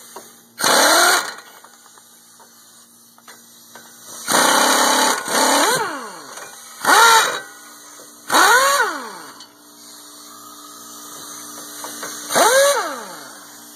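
Impact wrench ("air gun") run in about six short trigger pulls, each a whine that spins up and winds down, as it spins out brake caliper bracket bolts that have already been broken loose.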